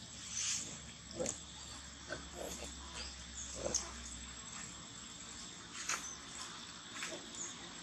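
Long-tailed macaques giving a few short grunts, spaced out about a second apart.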